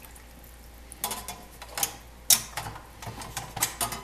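Metal tongs clinking and scraping against a stainless steel pot and the metal part held in it, with some sloshing of the hot antifreeze solution. The clinks are sharp and irregular, starting about a second in and coming most often in the second half.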